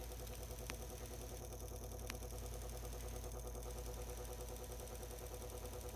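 Induction heater running with a steady hum made of several held tones while it heats a graphite crucible of aluminum scrap. Two faint ticks come about one and two seconds in.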